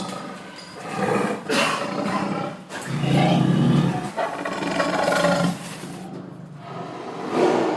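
Lion roaring again and again, each roar a second or so long.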